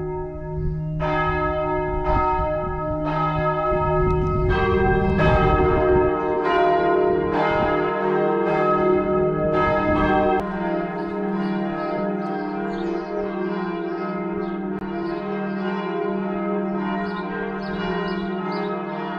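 Church bells ringing, several bells struck about once a second with long ringing tones, becoming a denser overlapping peal about halfway through.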